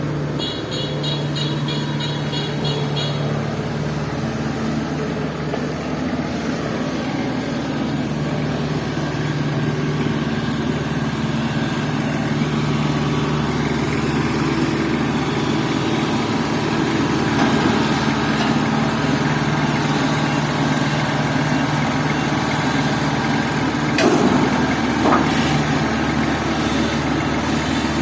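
Diesel engine of a Kubota DC70 Plus combine harvester running steadily with a constant low hum. A quick run of short high-pitched beeps comes in the first few seconds, and there is a sharp knock near the end.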